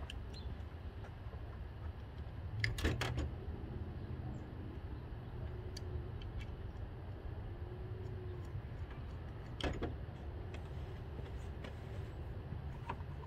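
A few faint clicks and knocks over a steady low hum: a cluster about three seconds in and another near ten seconds.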